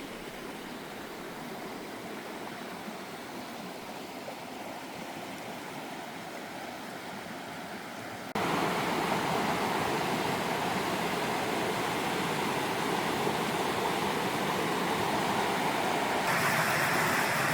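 Steady rushing noise with no clear tone or rhythm. It jumps abruptly louder about eight seconds in and steps up again near the end.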